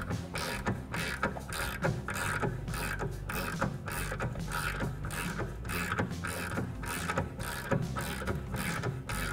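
Ratchet wrench clicking in quick, even strokes as it runs down a suspension control arm bolt, over background music with a steady beat.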